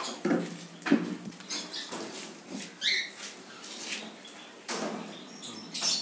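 Clicks and light metal knocks from a wire cage's pull-out feed tray being handled, with one short conure call about halfway through.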